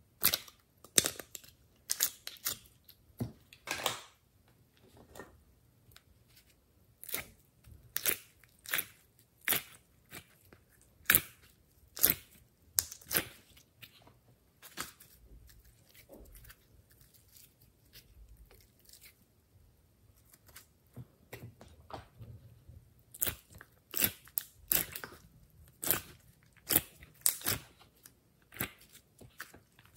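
Glossy slime being squeezed and kneaded by hand, giving irregular sticky pops and crackles, quieter for a few seconds in the middle.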